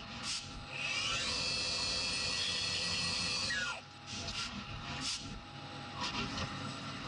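CNC milling machine spindle spinning up with a rising whine about a second in, running at a steady high pitch for a couple of seconds, then winding down with a falling whine. It is followed by several short hissing bursts.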